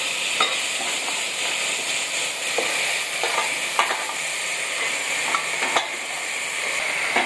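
Vegetables sizzling in hot oil and fried tomato in an aluminium pressure cooker pot, a steady frying hiss, with a steel spoon clinking and scraping against the pot now and then as they are stirred in.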